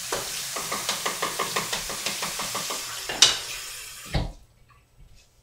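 Hot tap water running over a stuck jar lid while the lid is rapped quickly with a hard object, about six taps a second, to loosen the seal. A sharp clack a little after three seconds and a thud as the water stops about four seconds in.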